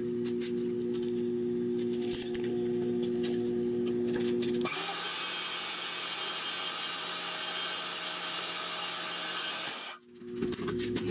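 Portable metal-cutting band saw running: first a steady motor hum, then about five seconds in a harsher, hissing rasp as the blade goes through flat steel bar. A brief drop near the end, then the hum again.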